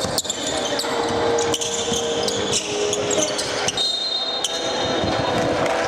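Indoor basketball game: a ball bouncing on the court and short sharp squeaks and knocks over a steady background hum of the gym.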